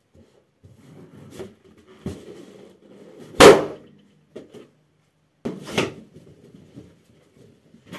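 A latex party balloon bursts with one loud bang about three and a half seconds in, stomped with a socked foot. Shuffling and softer knocks come before it, and a second sharp crack about two seconds after it.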